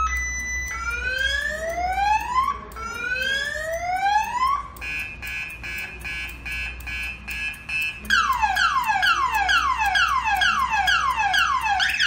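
Car alarm siren sounding continuously and cycling through its tones: a short steady beep, two long rising whoops, a fast pulsing tone, then a run of rapid falling sweeps. It is the smart anti-hijacking alarm going off because the smart key has been away from the car for six minutes.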